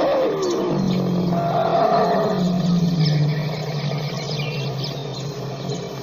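African elephant calling: a pitched call slides down and ends at the start, then a long, low, slightly falling call follows and fades away near the end.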